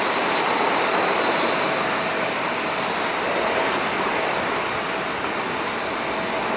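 Airbus A320-214's CFM56-5B turbofan engines at low approach power as the airliner flares just above the runway: a steady jet rush with a faint steady whine.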